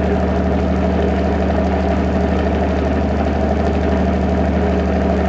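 Bedini SG pulse motor running steadily: its spinning magnet wheel, pulsed by the drive coil, makes a constant hum with a fast, even pulse.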